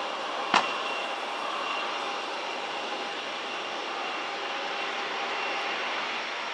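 Boeing 737 jet engines whining steadily on final approach and through touchdown, a constant rush with a thin high whine over it. A single sharp click sounds about half a second in.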